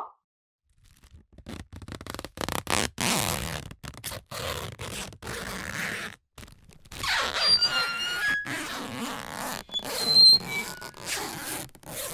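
Cartoon squeezing sound effects for a shape being forced down a narrow slot. Irregular rubbing and scraping noises stop and start, with a few brief high squeaks in the second half.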